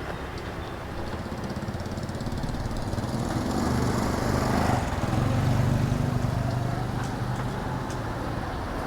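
A motor vehicle's engine passing close by on a street. Its low hum swells to a peak about five to six seconds in, then fades.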